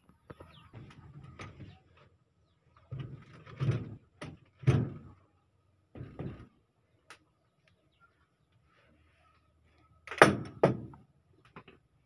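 Newly hung wooden-framed woven-bamboo door being swung and pushed against its frame, knocking and bumping several times, with the loudest pair of knocks near the end.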